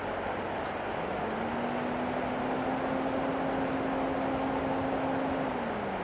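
Steady rushing outdoor noise with a distant engine hum that comes in about a second in, holds a steady pitch, and drops away near the end, like a vehicle passing.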